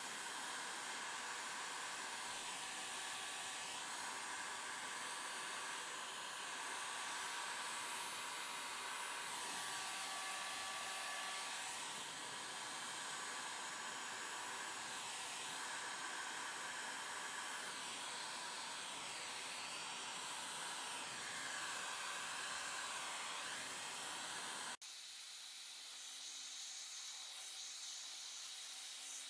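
Bauer heat gun blowing steadily, melting beeswax into wood. About 25 seconds in, the sound cuts to a quieter, thinner rush of the heat gun's air.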